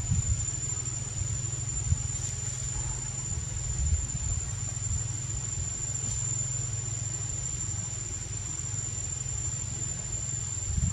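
An insect's steady, unbroken high-pitched trill, over a low rumble.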